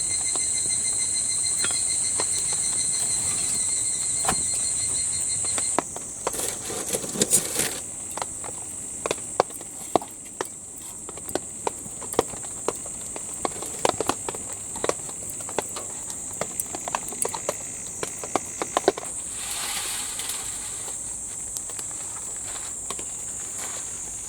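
Insects shrilling steadily in a high band, joined for the first six seconds by a second, pulsing insect call. After that the steady shrill goes on under a run of scattered light clicks and knocks.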